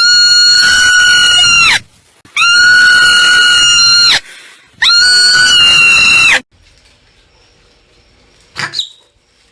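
Marmot calling: three long, loud screams at a steady pitch, each nearly two seconds, the pitch rising at the start of each and dropping at the end, then a short, much fainter chirp near the end.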